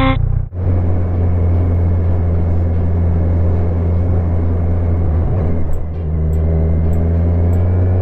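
Kawasaki Z1000's inline-four engine running steadily under way, heard onboard with wind and road noise. The engine note breaks briefly a little past halfway, then settles again.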